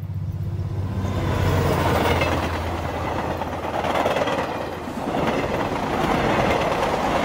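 Loud rushing rumble: a low steady hum that, about a second in, builds into a broad noise swelling and easing in several waves.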